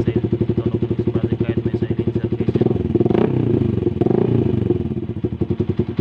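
Motorcycle engine idling through a freshly installed SC Project slip-on silencer, with an even putting beat. About halfway through it is revved up briefly and falls back to idle.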